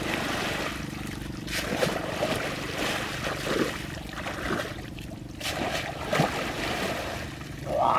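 Water splashing and sloshing in irregular surges as a woven bamboo basket is plunged into shallow muddy water and scooped back out.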